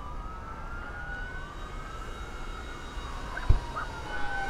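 Emergency vehicle sirens wailing in slow rising and falling sweeps, with more than one tone overlapping. One sharp thump about three and a half seconds in.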